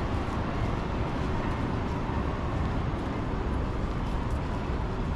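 Steady city street ambience: a constant low rumble of passing traffic.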